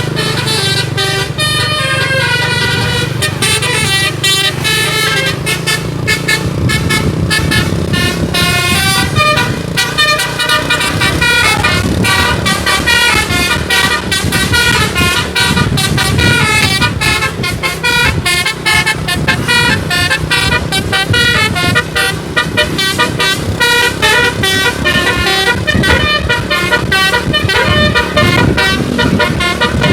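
A bus's multi-tone musical air horn (telolet) playing a running tune, note after note in quick succession, over the bus's engine running.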